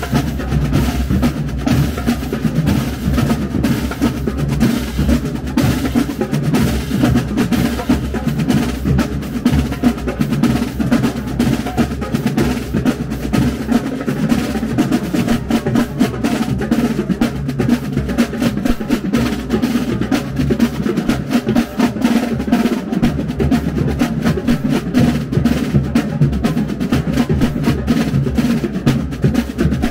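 Marching band drumline playing a fast, continuous cadence while on the move: snare drums right at the microphone with rolls and quick strokes, backed by tenor drums, bass drums and crash cymbals.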